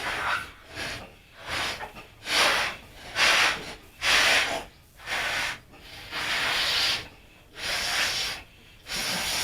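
People blowing hard into rubber balloons to inflate them, a run of forceful breathy puffs about one a second, with one longer blow near the middle.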